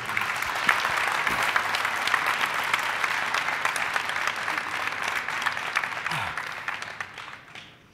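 Conference audience applauding, a dense patter of many hands clapping that fades away over the last couple of seconds.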